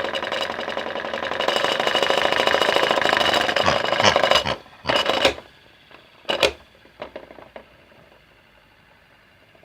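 Small electric motor of a toy washing machine running with a fast rattle, then slowing and cutting off about four and a half seconds in. It starts twice more in short bursts, followed by a few faint clicks.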